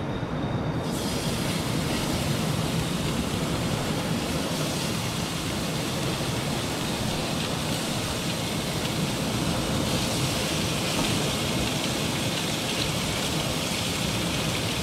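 Seasoned redfish fillet pieces laid into hot oil in a frying pan on a portable camp stove, sizzling from about a second in. The sizzle gets louder about ten seconds in as more fish goes into the pan.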